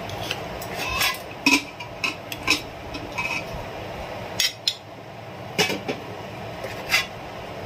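Metal serving spoon scraping and clinking against the side of a stainless-steel pot as rice pulao is scooped out: a string of short, irregular clinks, over a steady low hum.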